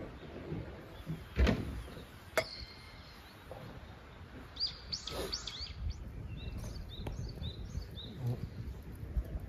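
A small bird chirping: a quick run of short high notes around the middle, then a few more spaced notes, over a low outdoor background rumble. A loud knock and a sharp click come in the first few seconds, the knock being the loudest sound.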